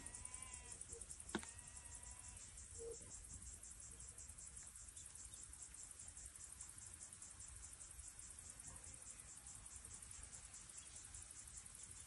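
Faint insects chirring steadily, a high-pitched trill with a fast pulsing rhythm. A single sharp click sounds about a second and a half in, and faint whistled calls come in the first couple of seconds.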